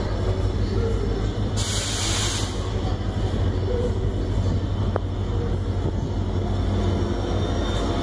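Steady low rumble of an approaching WDP4D diesel locomotive and its train. About a second and a half in, a burst of hissing air lasts about a second.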